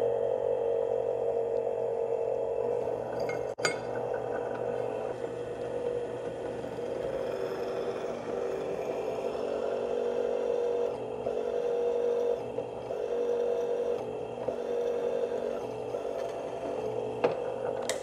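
Benchtop drill press running, its bit cutting into a steel piece: a steady whine over a motor hum, with one sharp click a few seconds in.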